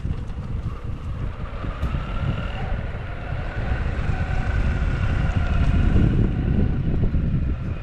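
Wind buffeting the microphone of a camera riding along with an electric mountainboard, a low rumble that grows louder about six seconds in, with a faint wavering whine above it.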